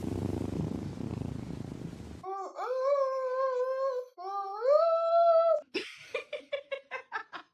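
Domestic cat: about 2 s of low rumbling purr, then two long drawn-out meows, the second rising in pitch before it holds. A run of quick, short sounds follows near the end.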